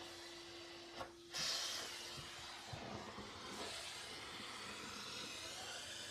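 Canister vacuum cleaner running, its suction hissing as the nozzle is drawn through a long-haired cat's fur. About a second in the sound dips briefly, then comes back louder and changes in tone.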